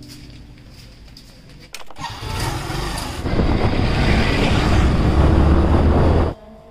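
Motorcycle on the move: its engine and a rushing noise build from about two seconds in, with a heavy low rumble. The sound cuts off abruptly near the end.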